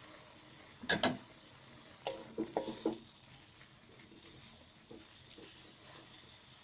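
A spatula stirring a pan of seasoning frying in oil and a little water, which sizzles steadily. A sharp clatter of utensil on pan comes about a second in, and a run of knocks and scrapes follows between two and three seconds.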